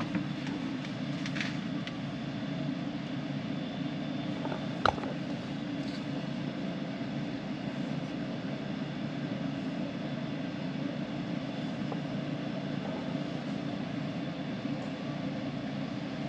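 Jeep Wrangler TJ running with a steady low drone, with a single sharp click about five seconds in.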